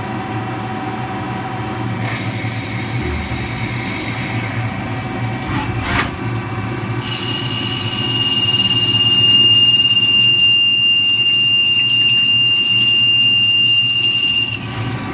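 CNC lathe machining titanium bar stock under flood coolant: a steady machine hum, with a high whine from the cut about two seconds in and a click around six seconds. From about seven seconds a louder, steady two-note high whine holds until it stops just before the end; it is a little loud.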